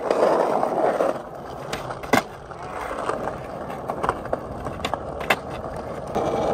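Skateboard wheels rolling over rough asphalt, with a sharp clack of the board about two seconds in and a lighter one a little after five seconds.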